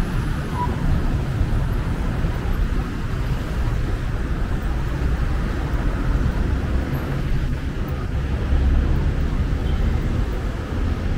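Steady road traffic noise, mostly low, from cars and buses going round a busy roundabout.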